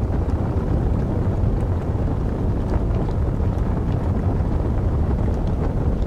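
Wood fire of burning logs: a steady low rushing rumble, like wind, with faint scattered crackles.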